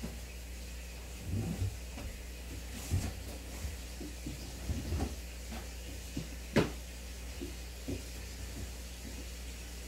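Aquarium equipment running: a steady low hum with bubbling, broken by a scatter of soft irregular knocks and gurgles, the sharpest click about six and a half seconds in.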